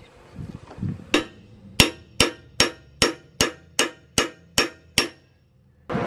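Hammer striking metal with ringing blows. One blow comes about a second in, then nine more at an even pace of about two and a half a second, stopping shortly before the end.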